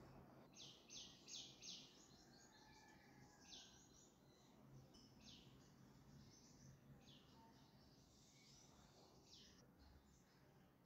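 Near silence: faint room tone with short, faint high-pitched chirps or rasps, three close together about a second in and a few more scattered later.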